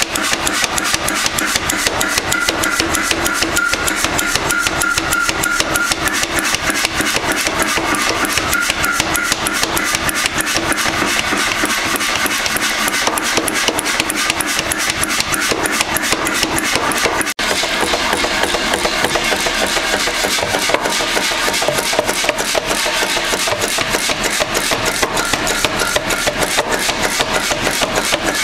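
Power hammer pounding a red-hot iron bar in rapid, even blows, with one brief break about two-thirds of the way through.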